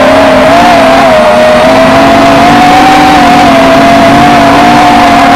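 QAV-R 220 racing quadcopter's brushless motors and propellers whining loudly, picked up by its onboard camera; the pitch wavers and edges up slightly with the throttle.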